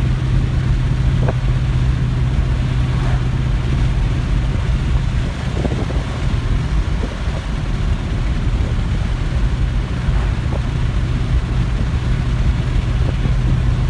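2000 Ford Mustang GT's 4.6-litre V8 exhaust, fitted with Thrush welded mufflers, heard from inside the cabin with the windows down while cruising at about 1900 rpm. It gives a steady low drone that is not too bad, over road and wind noise.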